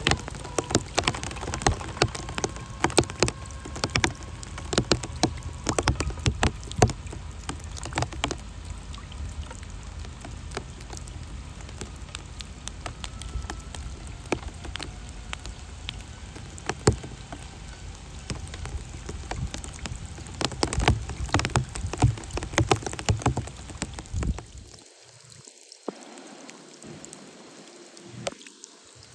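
Steady rain falling on a wet street and into puddles, with many sharp close taps of drops and a low rumble that drops away near the end, leaving it quieter. Under it, a faint rising whine from the electric motor of a Traxxas TRX-4 scale RC crawler driving away through the water.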